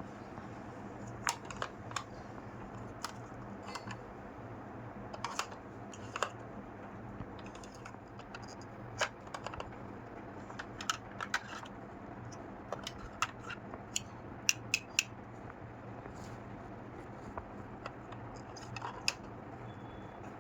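Small toy kitchen pieces being handled, giving irregular light clicks and taps over a steady low hum.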